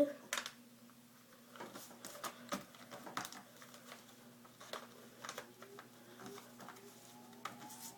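Sheet of white paper being folded and creased by hand: scattered soft rustles and crisp taps as the fold is pressed flat, over a faint steady hum.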